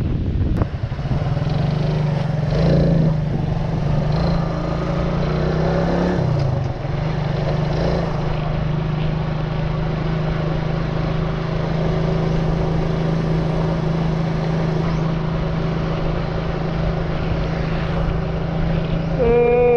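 Small motor scooter engine running while riding along a road, its pitch climbing and dipping over the first few seconds, then holding steady. A brief falling pitched sound comes near the end.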